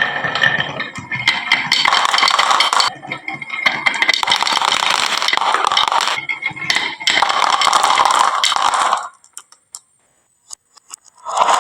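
Many marbles rolling and clattering down a wooden marble-run slope, a dense rattle of clicks and knocks. It stops for about two seconds near the end, then starts again.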